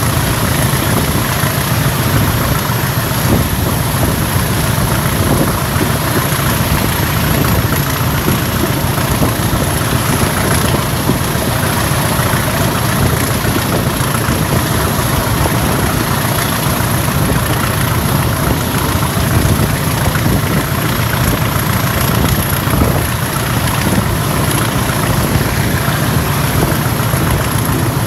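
Diesel locomotive's engine running steadily under power as it hauls the train, heard from an open coach window with the steady noise of the moving train.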